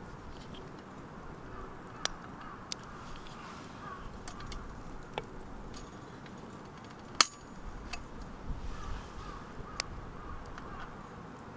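Wood fire crackling, with several sharp pops; the loudest comes about seven seconds in. Birds call in short bursts in the background, twice.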